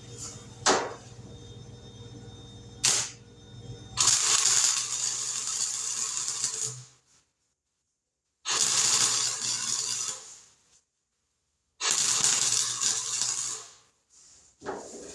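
Welder tacking sheet-metal patches into a truck bed: two brief zaps, then three crackling welds of about two seconds each.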